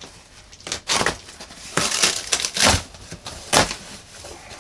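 Cardboard shipping box being torn open by hand: three bouts of rough ripping and crunching, about a second apart.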